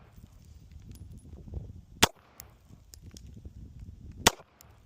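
Two shots from a Glock 48 9mm pistol, a little over two seconds apart, each a single sharp crack, over a low steady rumble.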